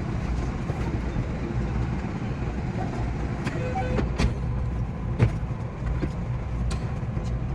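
JR West 227 series electric train running, heard from the driver's cab: a steady low rumble with sharp clicks now and then, and a brief beep of a few tones a little after three seconds in.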